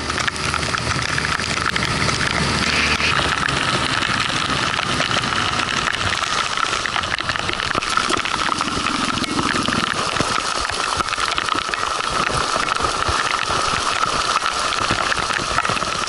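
Outboard motor pushing an inflatable boat through choppy water in heavy rain, running steadily, with water rushing and splashing along the hull and rain hissing.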